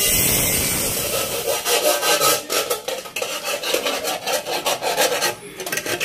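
Angle grinder cutting galvanized steel trunking, then from about a second and a half in, repeated rubbing strokes on the freshly cut sheet-metal edges to take off the sharp burr.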